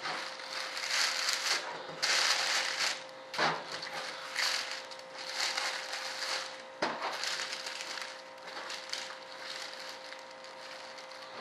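Large sheet of paper rustling and crinkling in repeated short bursts as it is handled and worked along its edge, over a steady faint hum.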